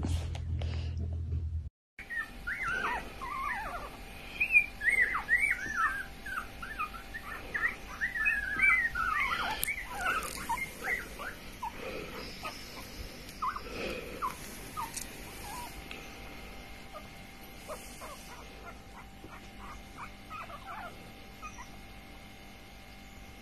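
Newborn Jack Russell terrier puppies squeaking and whimpering: many short, high squeaks close together, thinning out after about ten seconds.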